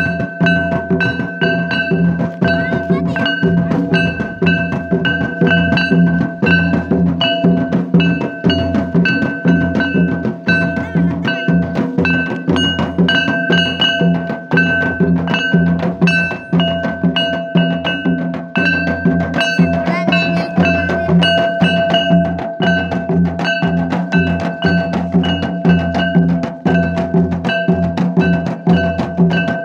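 A folk drum ensemble of double-headed barrel drums played in a fast, steady rhythm of dense beats. A steady ringing tone is held over the drumming.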